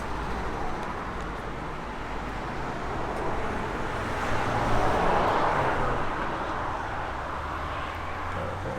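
Handheld gas blowtorch flame hissing steadily, swelling in loudness about halfway through, over a low steady hum.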